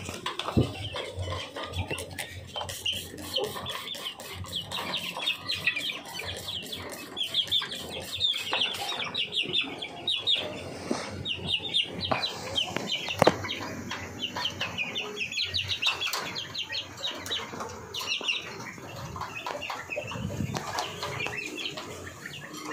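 A pen of young chickens peeping and chirping continuously, many short high calls overlapping, with scattered sharp clicks among them.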